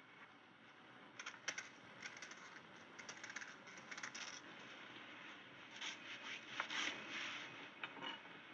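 Faint, irregular scraping and scratching of a small metal tool worked against a wooden cell door, in short strokes with small clicks. The scraping is kept quiet so as not to be overheard.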